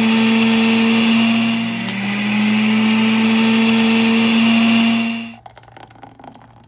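Electric juicer motor running steadily as it presses fruit and greens, its pitch dipping briefly about two seconds in before recovering. It cuts off suddenly about five seconds in.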